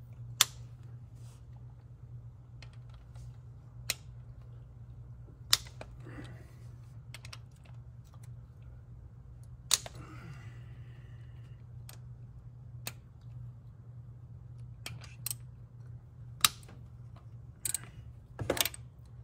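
Scattered sharp metallic clicks and knocks of a ratchet and socket working the camshaft bearing cap bolts on a cylinder head, one every second or few, over a steady low hum.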